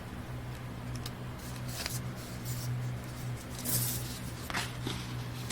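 Soft rustling and handling of the box set's paper and cardboard CD sleeves, a few brief scrapes, over a steady low hum.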